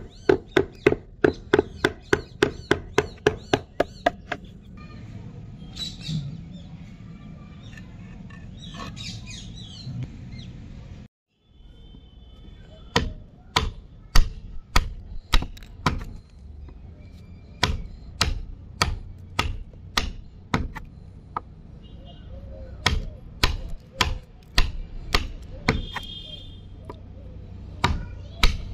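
A wood chisel is struck repeatedly, biting into a board. There is a fast run of sharp knocks, about four a second, for the first few seconds, then a quieter spell, then single knocks about one or two a second as a notch is chopped out.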